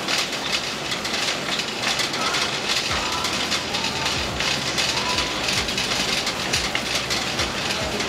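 Shopping cart being pushed across a store floor: a steady rattle and clatter from its wheels and wire basket.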